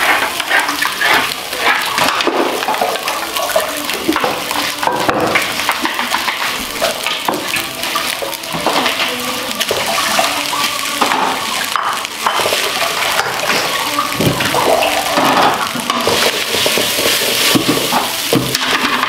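Nasi goreng frying in a hot wok: a steady sizzle as cooked rice is tipped in onto the fried ingredients, with a spatula scraping the wok as it is stirred.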